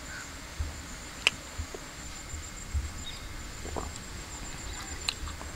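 Steady high-pitched chirring of insects in the grass and trees, with a couple of faint sharp clicks.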